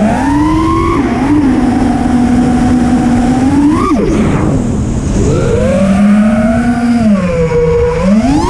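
5-inch FPV quadcopter (Armattan Badger on Iflight Xing 2450kv motors and HQProp Ethix S5 props) whining, its pitch following the throttle. It rises just after the start and holds steady, surges and drops sharply about four seconds in, then climbs again, dips, and rises near the end.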